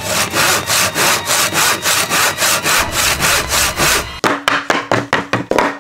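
Hand saw cutting through a pine board, back-and-forth strokes about four a second, turning shorter and less even in the last second or so.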